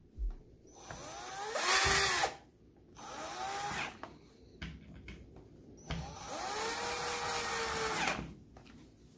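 Cordless drill-driver turning screws in a plastic switch housing, three short runs of the motor, each speeding up and winding down, the first and loudest ending about two seconds in.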